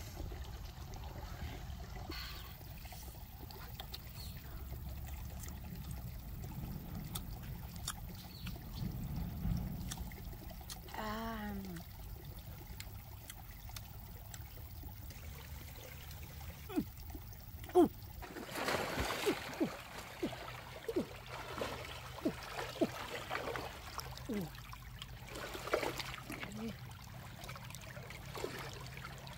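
Shallow stream water trickling, then for the last third irregular splashes as a person wades and gropes through the water with her hands. A brief wavering vocal sound comes a little before the middle.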